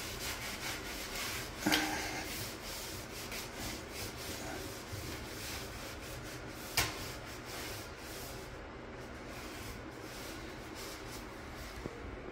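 Paper towel wiping and rubbing over a wet tiled shower floor in quick repeated strokes, with two short knocks about two seconds and seven seconds in.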